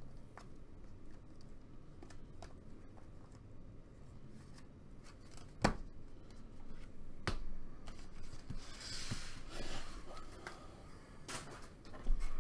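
Donruss Optic trading cards being handled: light clicks and flicks of card edges sliding past one another, with a few sharp taps as card stacks are set down on the table. A brief rustle comes about nine seconds in.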